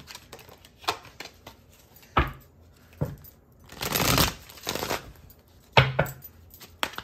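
Tarot cards being shuffled and handled by hand: soft card rustles, a longer shuffle about four seconds in, and several sharp taps of the deck or cards.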